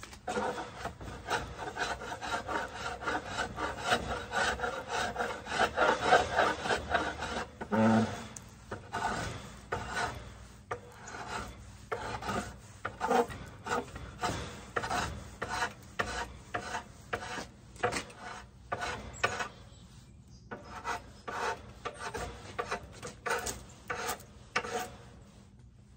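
Draw knife shaving wood off an Osage orange bow stave, stroke after stroke: a dense run of scraping at first, then separate short shaving strokes about one or two a second.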